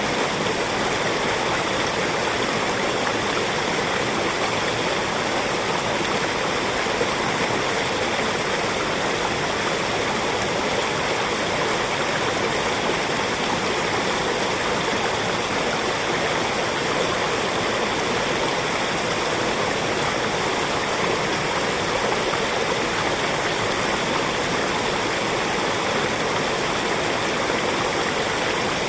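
Small forest stream flowing steadily over rocks, a continuous rushing and babbling of water.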